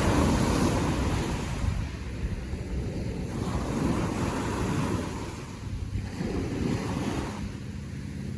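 Ocean waves washing onto the shore, the surf swelling and easing every few seconds, with wind buffeting the microphone as a low rumble.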